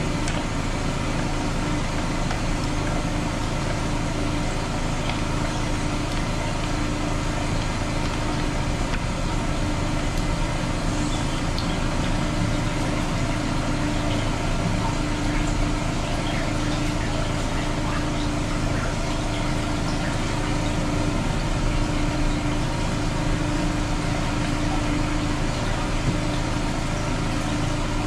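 High-pressure drain jetter's engine running steadily at a constant pitch, driving the jetting hose in the sewer line.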